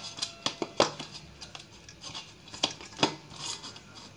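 Wheat dough being kneaded by hand in a stainless steel bowl: soft squishing and tearing of the dough, with a few sharp, irregular knocks as fist and dough hit the steel.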